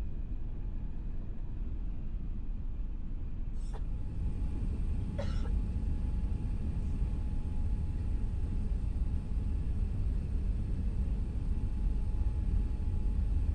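Steady low rumble of an Airbus A380's cabin while the airliner taxis, growing slightly louder after about five seconds. A brief cough is heard about five seconds in.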